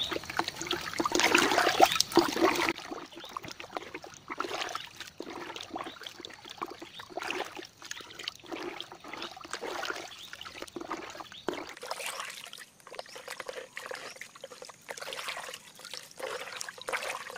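Water sloshing and trickling in a bucket as a hand, and then a small scoop, stirs it to dissolve granular chemical fertilizer. It is loudest in the first few seconds, then goes on as irregular small splashes.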